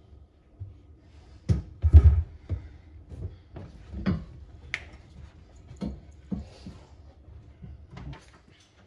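Irregular knocks and clunks, about seven in all, of parts being shifted and set down inside a car. The loudest comes about two seconds in.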